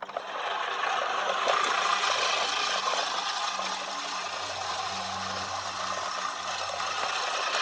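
Great States 204-14 14-inch manual push reel mower cutting grass: the spinning reel blades whir and clatter as they snip the grass against the cutter bar. The sound starts abruptly and runs on steadily as the mower is pushed.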